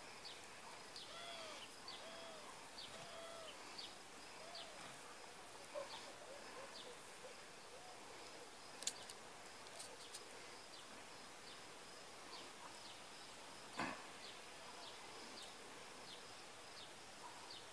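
Faint outdoor ambience with birds calling in the background: short repeated notes about once a second, some thin high chirps, and one sharp knock about fourteen seconds in.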